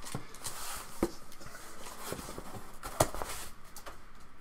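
Cardboard shipping box and its foam packing insert being handled and lifted out, rustling and scraping, with two sharp knocks: one about a second in and a louder one about three seconds in.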